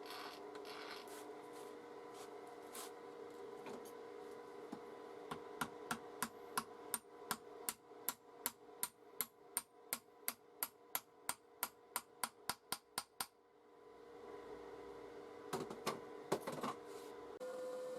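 A run of evenly spaced sharp taps, about three a second, over a steady hum. Both stop together about 13 seconds in. A few scattered knocks follow, and a louder steady hum starts near the end.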